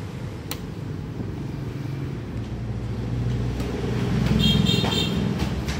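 A motor vehicle's engine rumbling past, growing louder to a peak about four and a half seconds in. A brief high chirping comes near the peak.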